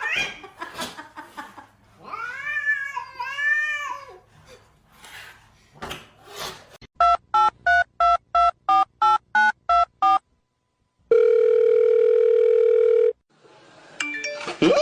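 A cat meows a few times, then a quick run of about a dozen short telephone keypad-style beeps, followed by one steady electronic tone held for about two seconds.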